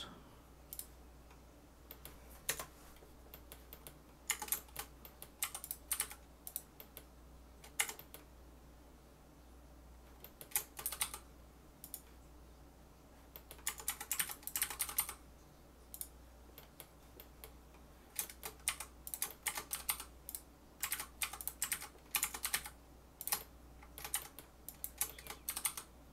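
Computer keyboard keys tapped in short irregular clusters, with pauses between them, as Blender shortcuts are entered. A steady low hum from a room fan runs underneath.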